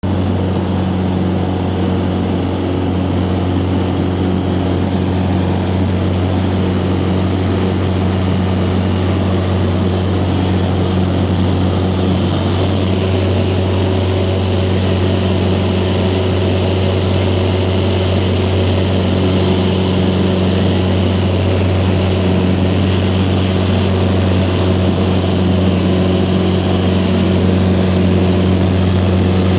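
Propeller aircraft's engine and propeller droning steadily in flight: a low hum that holds one pitch throughout and grows slightly louder near the end.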